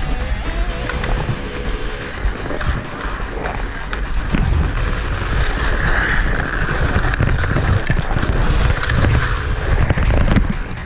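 Ice skate blades scraping and cutting across rough outdoor pond ice during play, under a steady low rumble. About six seconds in, a louder hiss as a skater's hard stop sprays snow off the ice.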